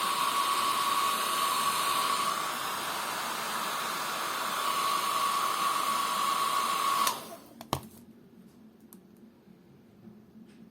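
Hand-held hot-air dryer running steadily with a constant whine, switched off about seven seconds in, followed shortly by a single click. It is the kind of dryer used to dry leather colour during colour matching.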